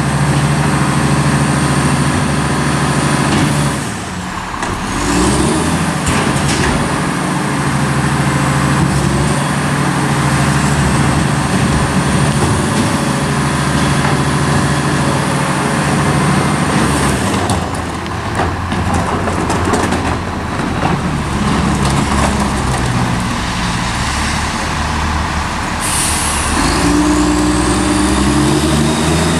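Diesel engine of a CCC Labrie MSL side-load garbage truck running steadily at idle. Near the end there is a sudden sharp hiss of air brakes releasing, and the engine revs up as the truck pulls away.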